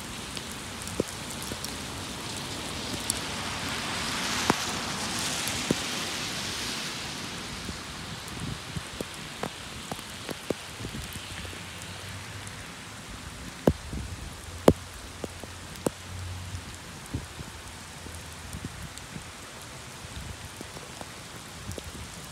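Heavy rain from a thunderstorm squall line falling steadily and growing louder for a few seconds early on, with scattered sharp taps close by, the loudest two a little past the middle.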